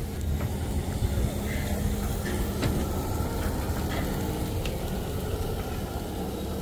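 Metre-gauge 2-10-2 tank steam locomotive 99 7241-5 at close range: a steady hum and low rumble, with a few light clicks.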